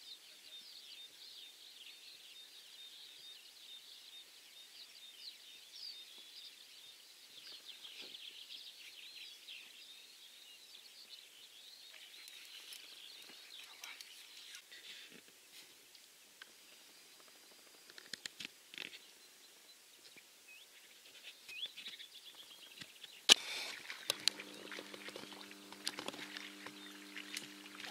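Birds chirping over a steady outdoor background. About 23 seconds in there is a sharp click, the loudest sound, and a steady low hum then runs for the last few seconds.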